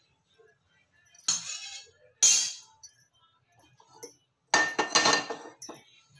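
Metal kitchenware clinking: a steel slotted ladle knocking against a metal kadhai twice, then about a second of clattering with a ringing note as the kadhai is handled on the gas burner's metal grate.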